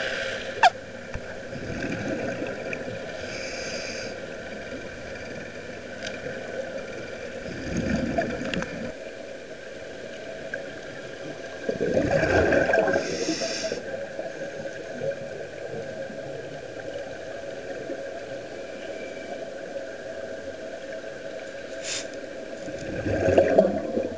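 Scuba diver breathing through a regulator underwater: a steady hum with a few rushes of exhaled bubbles, the loudest about halfway through and another near the end.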